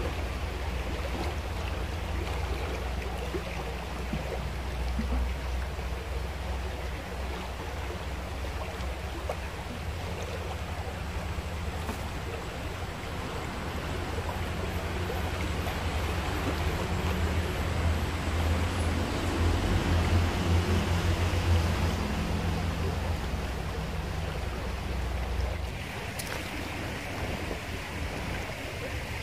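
Shallow river flowing over rocks, a steady rush, with wind rumbling on the microphone. Near the end the rumble drops away and the water rush sounds brighter and closer.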